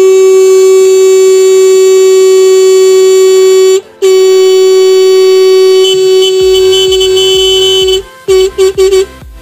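Loud horn-like sound effect: two long blasts on one steady pitch with a short break between them, then three or four quick short blasts near the end. A low musical beat comes in under it about two-thirds of the way through.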